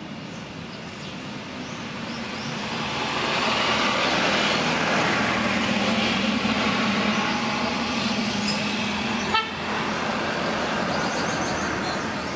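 A motor vehicle running past, its engine and road noise growing louder over the first few seconds and then easing off, with a short sharp click about nine seconds in.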